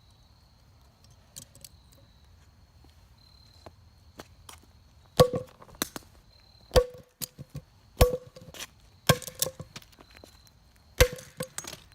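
Hammer blows on the back of a second hammer held against a Master padlock, driving it into the lock's metal shell. A few light taps come first; then, from about five seconds in, five heavy metallic strikes land roughly one to two seconds apart, each with a brief ring.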